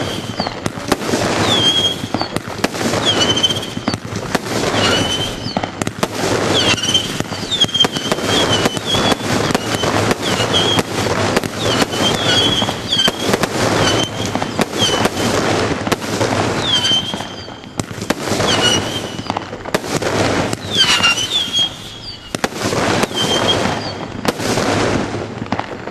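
25-shot consumer fireworks cake firing whistling tourbillions in quick succession. Many short high whistles dip and settle into a steady note, over a continuous run of bangs from the bursting breaks.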